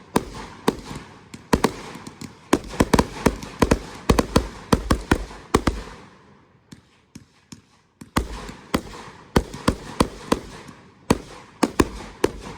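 Fireworks going off in rapid volleys of sharp bangs and crackles. The volleys thin into a lull about six seconds in, then a second quick barrage follows.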